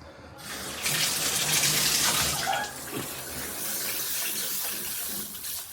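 Water turned on in a shower, starting about half a second in and running as a steady hiss that eases a little after about three seconds.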